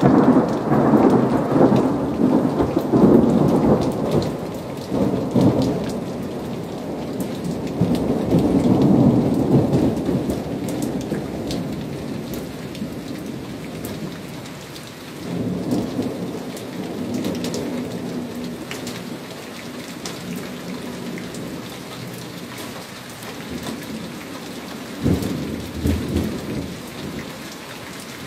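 Thunder rolling over steady rain: a long rumble that slowly fades over about ten seconds, a second rumble about halfway through, and a sharper, sudden clap near the end. Rain patters and drips all the while.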